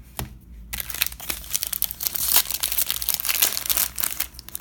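Plastic wrapper of a baseball card pack crinkling and tearing as it is torn open, a dense crackle that starts about a second in.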